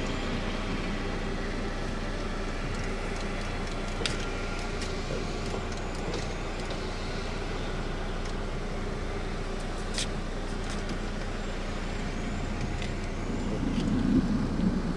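Vehicle engine idling steadily, with two sharp clicks about four and ten seconds in and a louder low swell near the end.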